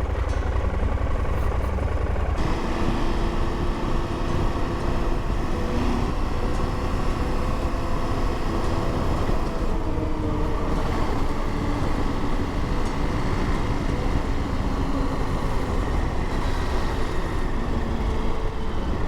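Motorcycle engine running under way, with wind and road noise, picked up by an in-helmet mic. The sound gets fuller about two seconds in, as the bike gets going.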